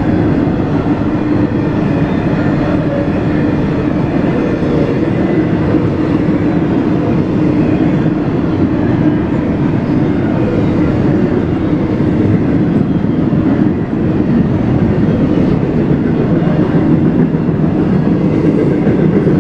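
CSX intermodal freight train rolling past, a loud, steady noise of its cars' wheels on the rails that holds even throughout.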